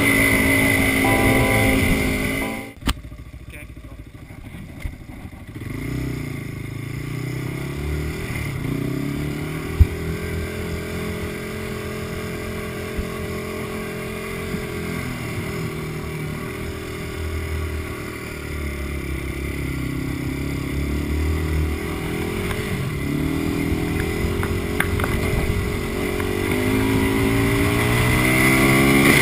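Background music cuts off about three seconds in. Then a Honda ATV engine runs as the quad is ridden, its pitch rising and falling with the throttle, with blips of revving and a longer climb near the end.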